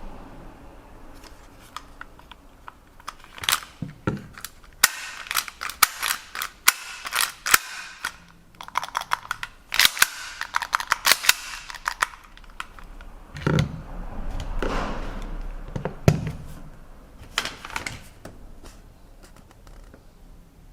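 Close handling noises: clusters of sharp clicks and clacks from small hard parts, with stretches of rustling between them, the clicking busiest a few seconds in and again near the end.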